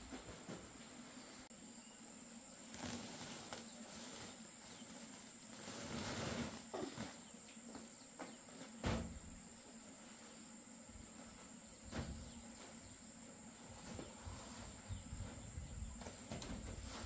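Insects trilling in a steady, high-pitched drone, with a few scattered knocks and a brief rustle about six seconds in, the sharpest knock about nine seconds in.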